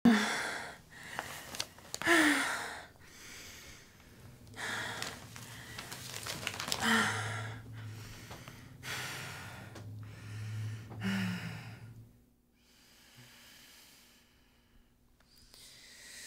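A woman breathing heavily in a run of gasps, about one every second or two, over a low steady hum; the breathing dies away about twelve seconds in, and a man's breathy gasp follows near the end.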